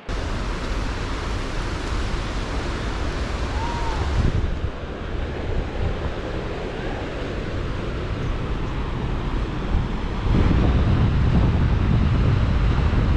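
Wind buffeting the microphone over a steady rushing noise, which steps up and gets louder about ten seconds in.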